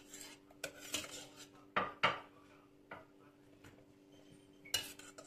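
A stainless steel slotted ladle clinking and scraping against a stainless steel pot and colander as boiled cauliflower florets are scooped out of the cooking water. It comes as several separate sharp clinks, the loudest about two seconds in and another near the end.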